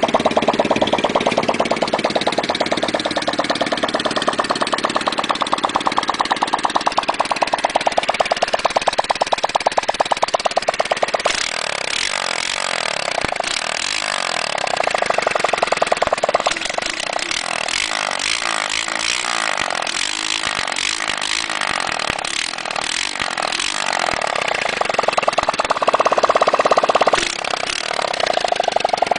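1974 Honda CT70's swapped-in 125cc horizontal single-cylinder engine running with no muffler, its exhaust coming straight out of the bare header pipe as a rapid, steady pulsing. The level swells briefly twice, about halfway through and near the end.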